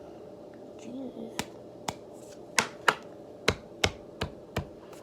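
Sharp clicks and snaps from slime being worked by hand, about nine at uneven spacing, starting about a second and a half in and getting louder in the second half.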